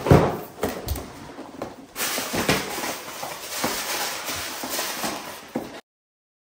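A thump, then several seconds of rustling and shuffling movement with small knocks as a person gets up from a sofa and leans in close to the camera; the sound cuts off abruptly near the end.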